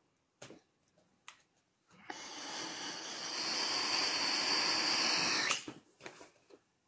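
A long hiss of rushing air that builds for about three seconds and then cuts off sharply, with a few faint clicks before it.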